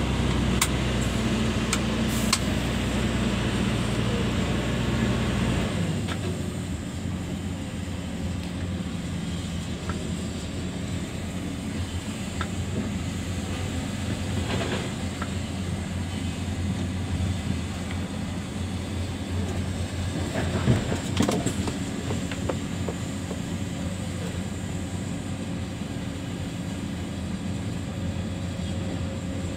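Hino 260 JD dump truck's six-cylinder diesel engine running, heard from inside the cab. About six seconds in, the deep low rumble drops away and the engine runs on more quietly, with a few faint clicks and knocks over it.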